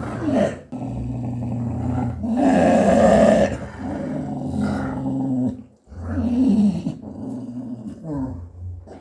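A dog growling in long, low growls broken by short pauses, rising to a louder snarl about two to three seconds in.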